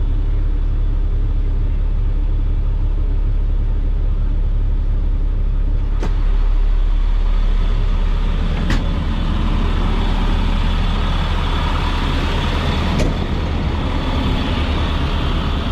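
Caterpillar diesel engine of a Sterling L7500 truck idling steadily after starting. A few sharp clicks and knocks come over it as the cab door is opened and the driver climbs out.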